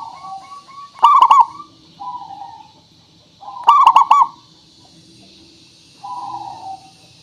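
Zebra dove (perkutut) cooing: loud, warbling phrases about a second in and again near four seconds, with softer coos between them.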